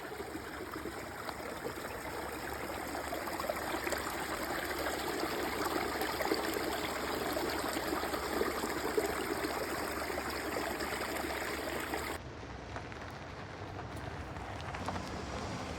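Steady rush of flowing water from a mountain stream. About 12 seconds in it changes abruptly and turns slightly quieter and duller.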